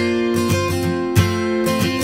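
Background music led by a strummed guitar, with regular strokes and sustained chords.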